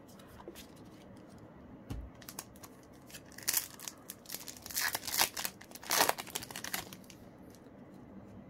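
Paper trading cards sliding and rubbing against each other as they are sorted by hand: a soft thump about two seconds in, then three short bursts of scratchy rustling.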